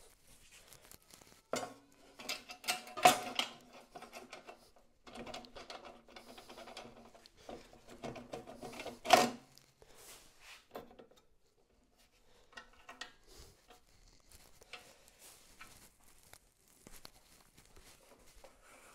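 Metal parts of a planer-jointer being lifted, set down and fitted by hand, with the motor off: scattered clanks, knocks and rattles, some ringing briefly. The two loudest bangs come about three and nine seconds in, and lighter handling sounds follow.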